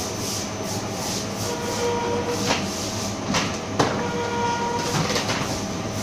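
Dumpling and wonton wrapper machine running: a steady mechanical drone with a whine that comes and goes and a few sharp clacks, the loudest nearly four seconds in.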